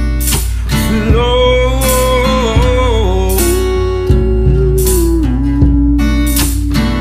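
Bluesy guitar music with a steady beat, carrying a long held melody note that wavers and steps down in pitch.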